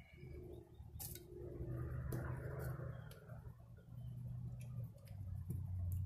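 A few separate light clicks and taps from a plastic GFCI outlet being handled and pressed into its box in an RV's outside wall, over a steady low hum.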